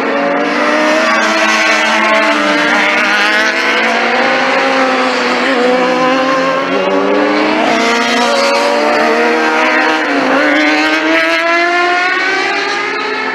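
Several sport motorcycles on a race track at high revs, their overlapping engine notes rising and dropping again and again as they accelerate, change gear and pass.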